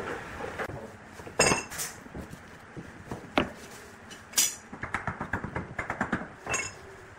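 Hard clinks and knocks of wooden blocks and a wooden glue stick against the workbench and a glue dish, with a quick run of light taps about five seconds in.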